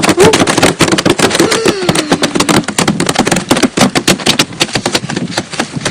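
Fast, irregular tapping and clattering, with voices rising and falling over it.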